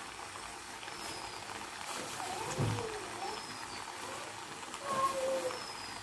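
Carrot halwa cooking in a pan, a faint sizzle as it is stirred with a large spoon and the sugar is mixed in. There is a soft knock about two and a half seconds in.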